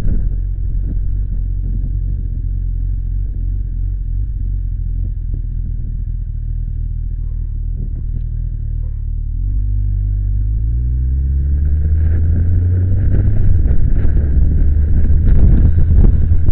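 Motorcycle engine running at low, steady revs, then rising in pitch as the bike accelerates about ten seconds in. Wind noise on the microphone grows as the speed builds.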